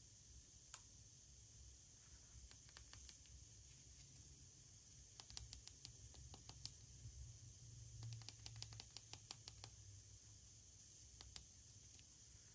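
Faint clusters of small sharp clicks and crackles, coming in short runs with pauses between, over a quiet low hum.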